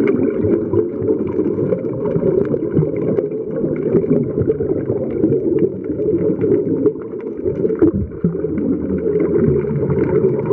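Muffled underwater noise picked up by a camera in a waterproof housing: a steady low rumble with some gurgling, dipping briefly near the end.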